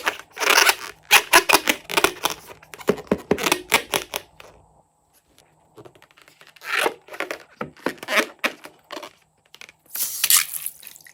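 Balloon rubber being cut and torn open: quick runs of crisp tearing and snipping strokes, a short pause about halfway, then more strokes near the end.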